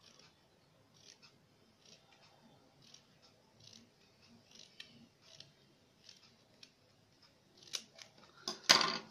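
Small scissors snipping craft paper, cutting a fringe into a small strip: short, evenly spaced snips about once a second. A louder burst of handling noise near the end.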